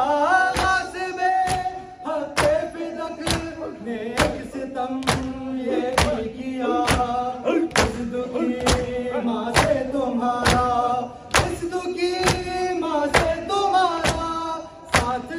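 Men doing matam, beating their bare chests in unison about once a second, while male voices chant an Urdu noha lament over the beat.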